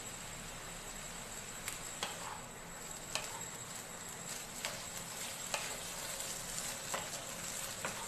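Chicken, scrambled egg and vegetables frying in a non-stick kadai, a steady sizzle as they are stirred and tossed with a spatula, with a few light clicks of the spatula against the pan.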